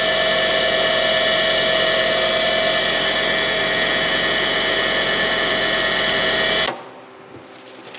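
Bench grinder's wire wheel running with a rusty steel lathe adapter held against it to strip the rust: a loud, steady hiss with a whine. It cuts off suddenly near the end, leaving a few faint clicks.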